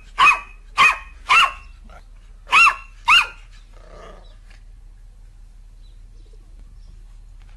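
Black-and-tan puppy barking: five short, high-pitched yaps in the first three and a half seconds, each rising and falling in pitch.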